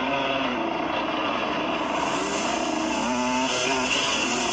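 Youth dirt bike's engine running hard on a trail, its pitch rising and falling several times as the rider works the throttle and gears.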